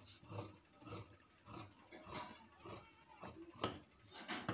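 Large tailor's shears snipping along the edge of khaki cotton uniform cloth, soft repeated cuts about twice a second, with a couple of sharp clicks near the end as the shears lift off the table. A cricket chirps steadily and high-pitched throughout, the most prominent sound.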